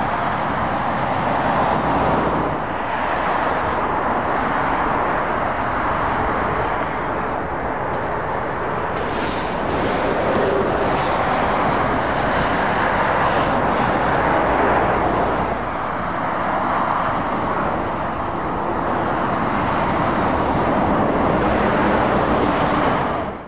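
Motorway traffic with heavy lorries passing at speed: continuous tyre noise and diesel engines that swell as each lorry goes by and ease off between them.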